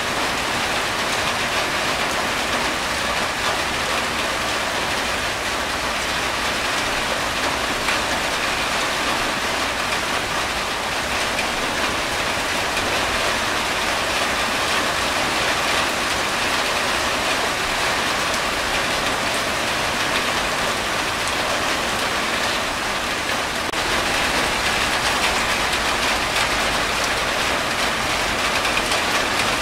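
Steady rain falling on a corrugated tin roof, with water streaming off the roof's edge; it grows slightly louder near the end.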